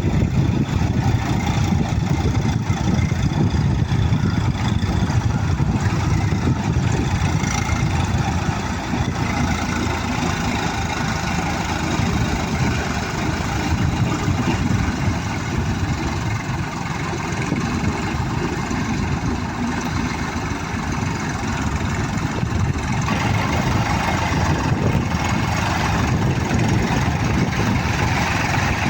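A heavy engine running steadily at an even speed, without revving.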